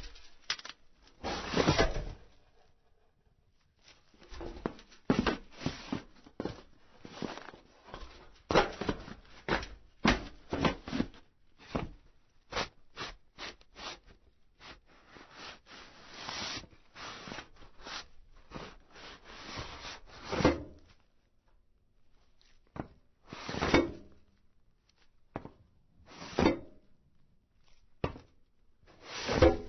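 Footsteps and movements on a metal roof: irregular steps, thuds and scuffing slides on the sheet metal, in busy runs broken by short pauses.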